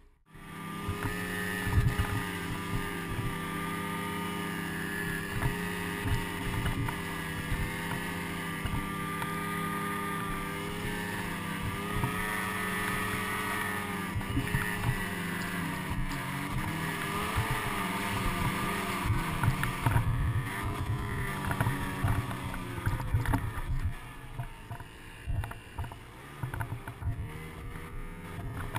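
Ski-Doo snowmobile engine running under load as the sled pushes through deep powder, its pitch rising and falling with the throttle. It eases off to a lower level near the end, with low knocks and bumps underneath.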